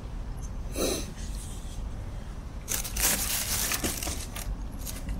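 Thin plastic bag crinkling as it is handled: a brief rustle about a second in, then steadier crinkling from about two and a half seconds in, over a steady low rumble.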